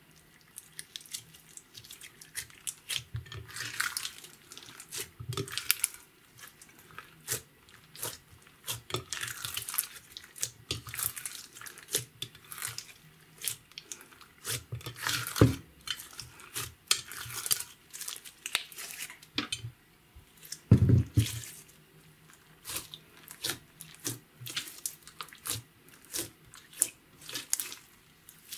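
Silver glitter slime with beads being kneaded, squeezed and pressed by hand: irregular wet squelches, sticky clicks and small pops, with two louder low squelching pops about 15 and 21 seconds in.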